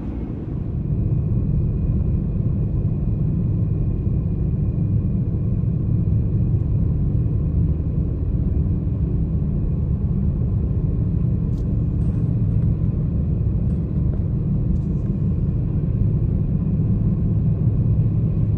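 Jeep driving on a snow-covered highway, heard from inside the cabin: a steady low road-and-engine rumble with a faint thin whine above it. The rumble gets louder about a second in.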